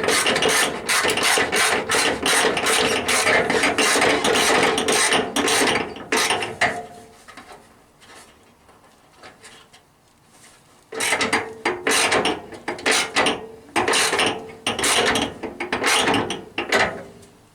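Socket ratchet clicking in fast runs, a long spell of ratcheting, a pause of about four seconds, then more short runs.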